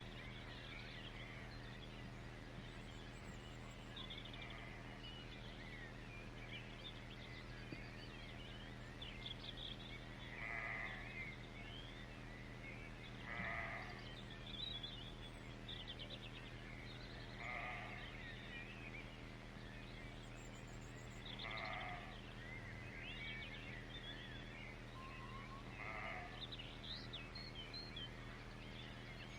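Outdoor nature ambience of birds chirping. A louder animal call stands out five times, about every four seconds, over a steady low hum.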